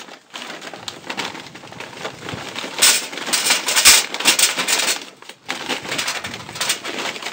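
Charcoal briquettes poured from a bag into a metal chimney starter, clattering and rattling against each other and the metal, with the bag rustling. The pouring is loudest about three to four seconds in.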